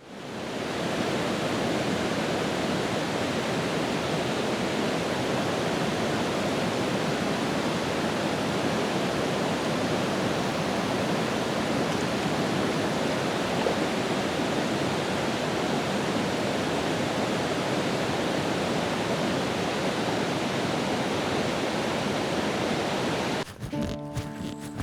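Steady rushing of a mountain stream, fading in at the start. Near the end it cuts off and gives way to music with held notes.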